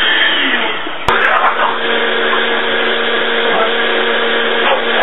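Kitchen blender motor running. About a second in there is a sharp click, and after it the motor settles into a steady whir with a constant hum.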